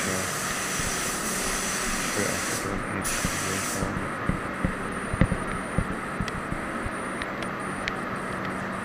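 Compressed-air paint spray gun hissing as it sprays white paint onto car bumpers, over a steady low hum. The hiss stops for about a second near three seconds in, apart from one short burst, then resumes more softly, with a few light clicks.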